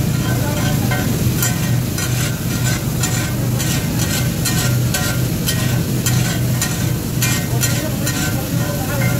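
Flat metal spatula scraping and tapping on a large iron pav bhaji tawa as chopped green chillies fry and sizzle in oil, a few strokes a second with a brief metallic ring. A steady low hum runs underneath.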